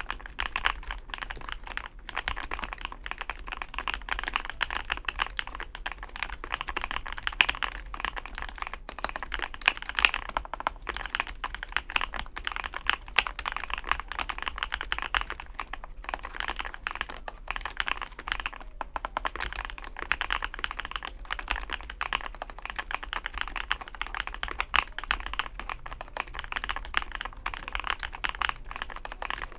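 Typing on a Chosfox x masro Fox65 gasket-mount mechanical keyboard: a fast, unbroken run of keystroke clicks.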